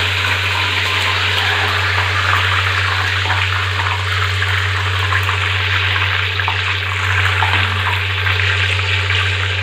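Curry leaves sizzling and crackling in hot deep-frying oil in a kadai, with a steady low hum underneath.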